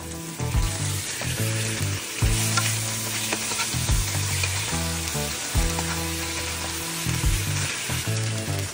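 Raw lamb pieces sizzling in hot oil with chopped onion and whole spices in a nonstick wok, with a spatula stirring and scraping through them.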